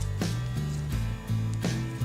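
Background music with a steady beat and a bass line moving between notes.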